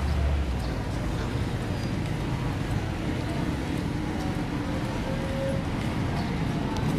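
Street traffic noise: a steady low rumble of vehicle engines, with a few faint clicks.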